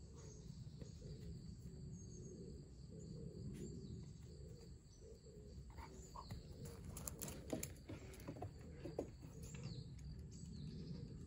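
Quiet outdoor ambience with a steady high insect drone. A cluster of light clicks and taps comes between about six and nine seconds in.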